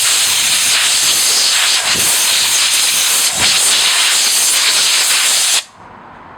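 A long, steady hiss of gas or spray released under pressure, which cuts off suddenly, followed near the end by a short second burst.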